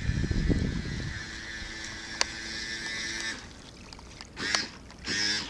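Nikko Stinger 2 RC speedboat's electric motor whining steadily, cutting off a little over three seconds in as the boat coasts in; then two short honking calls near the end.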